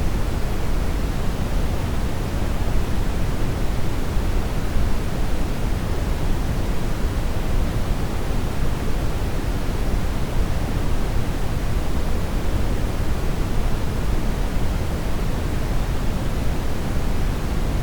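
Steady synthetic brown noise, an even deep rushing hiss weighted toward the low end, with no changes or events.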